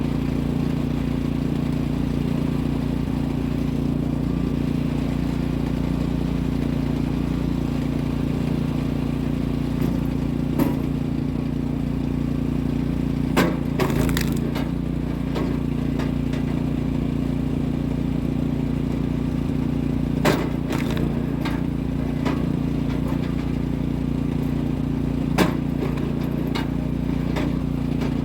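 Kinetic energy log splitter's small gas engine running steadily, with a few sharp cracks spaced several seconds apart as the wedge drives through logs and the wood splits.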